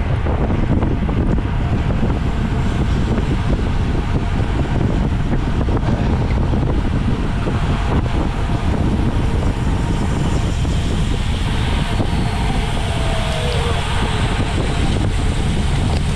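Steady, loud wind buffeting on the microphone, the rushing noise of riding at racing speed on a bicycle.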